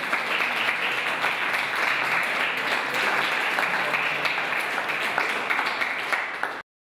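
Audience applauding: a steady, dense patter of many hands clapping, which cuts off abruptly near the end.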